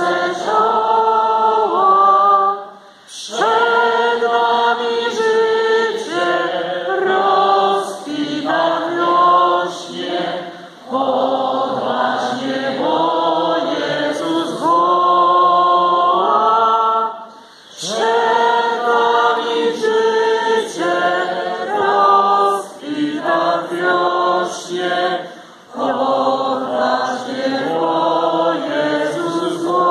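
Church congregation singing a hymn together, unaccompanied, in phrases broken by short pauses about every seven to eight seconds.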